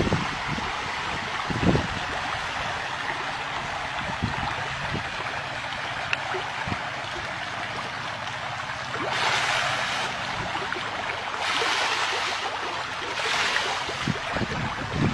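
Running water with a steady rush, swelling louder three times in the second half.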